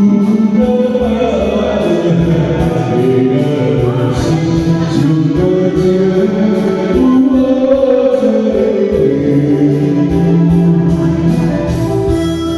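Music: a Taiwanese Hokkien ballad, with a singing voice carrying a slow melody of long held, gliding notes over instrumental accompaniment.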